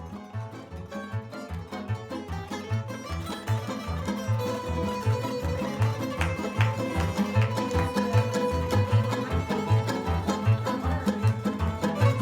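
Croatian tamburitza ensemble playing an instrumental folk tune: plucked tamburica strings over a steady, pulsing bass line. It starts quietly and grows louder over the first few seconds.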